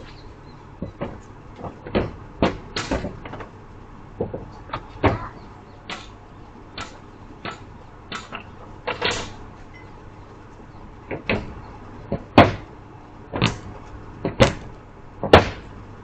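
A series of irregular sharp knocks and clunks, about twenty in all, spaced unevenly. The loudest three come in the last few seconds.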